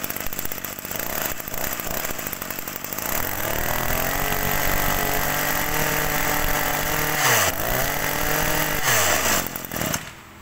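Small two-stroke engine of a Maruyama-line brush cutter running: it idles, is revved up to high speed about a third of the way in, dips and revs again, then drops back and cuts off near the end.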